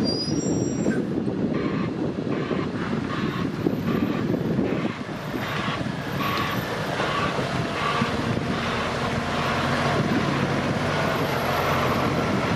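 DAF truck's diesel engine running as the tractor unit reverses with its tipper semi-trailer, with a reversing alarm beeping about twice a second. The beeps fade after about seven seconds, and the engine note steadies.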